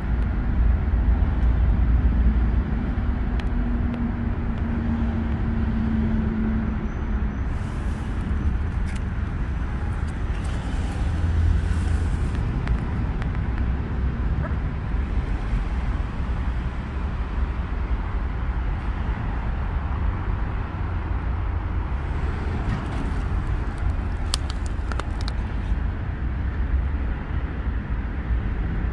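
Steady low rumble of distant road traffic, with a few short rustles about eight seconds in and again about two-thirds of the way through.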